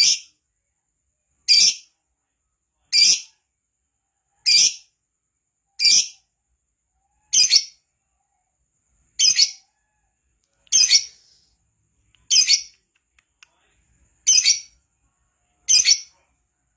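Lovebird giving short, shrill chirps, one roughly every one and a half seconds, about eleven in a row with silence between them.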